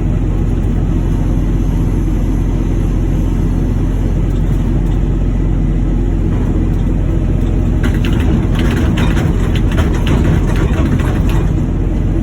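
Heavy machinery running steadily, a low engine-like drone, with a burst of clattering and knocking from about eight to eleven seconds in, typical of scrap copper being turned over.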